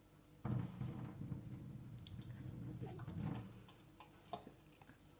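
Kitchen tap running water into the sink, starting about half a second in and easing off after about three seconds, with a light knock near the end.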